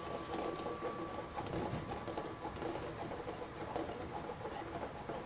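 Tomato, onion and stock sauce simmering and bubbling in a stainless steel sauté pan, with a steady fine crackle and small ticks as it is stirred with metal tongs.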